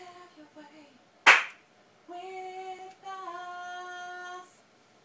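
A single sharp hand clap about a second in, between short sung notes in a high voice. It is followed by two long held sung notes.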